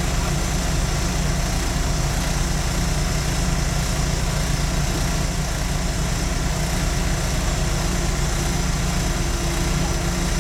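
Diesel railcar engine idling steadily, heard from inside the driver's cab with a constant low hum.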